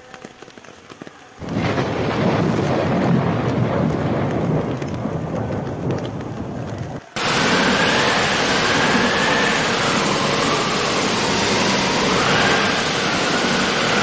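Heavy rain with thunder rumbling, starting abruptly about a second and a half in. A cut near the middle switches to a brighter, hissing downpour with a faint wavering tone over it.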